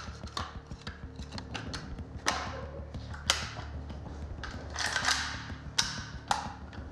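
Rifle being reassembled by hand: a run of small metal clicks with several louder clacks as parts are fitted and snapped into place, and a short scraping slide about five seconds in.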